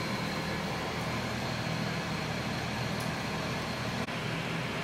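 Wolf countertop oven running as it preheats: a steady whirring hum, with a momentary break about four seconds in.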